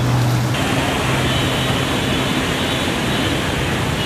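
Motor vehicle engine hum over a steady rush of water and traffic noise on a flooded road. The hum drops back about half a second in, and a steady hissing wash carries on.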